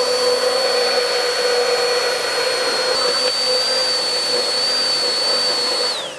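Hand-held immersion blender running at full speed in a jug of milk, oil, mustard and salt, emulsifying them into egg-free mayonnaise. It makes a steady high whine and winds down with falling pitch near the end as it is switched off.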